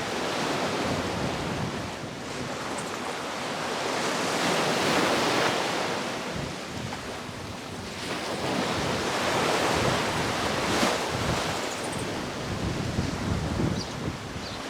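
Sea waves washing onto the beach, the surf swelling and easing as waves break, with wind buffeting the microphone in low rumbles near the end.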